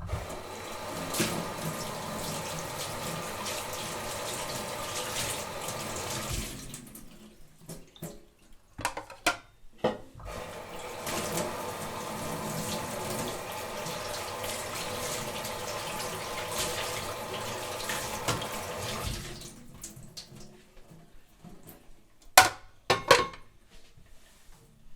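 Kitchen tap running into a sink while dishes are washed, in two long spells with a break of a few seconds between them. While the water is off there are short knocks, and near the end two sharp clinks of dishes or glasses being set down.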